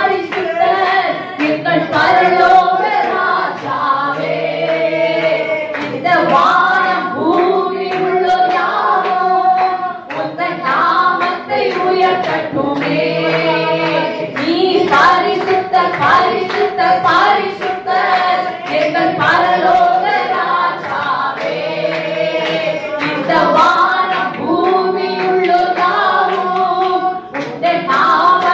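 Two women singing a Tamil Christian worship song through microphones, with hand claps keeping a steady beat.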